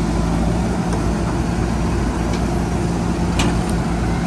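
Diesel engine of a JCB 3DX backhoe loader running steadily while the backhoe arm works, with a couple of brief sharp clicks near the end.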